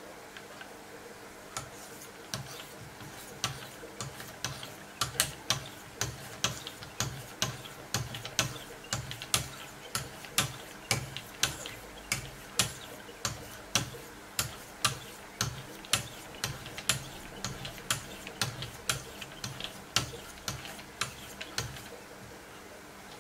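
Wicked Edge 3000-grit diamond stones stroked along the edge of a clamped steel knife blade. Each stroke gives a sharp click with a short scrape, in a steady rhythm of about two a second.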